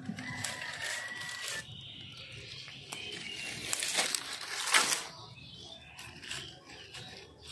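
Dry twigs and straw rustling and snapping as they are pushed into a clay-pot mud stove, with two sharp crackles about four and five seconds in, the second louder. A high whistled note is held near the start.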